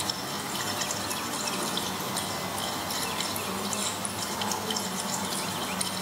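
Running water trickling and dripping steadily, with many small splashes.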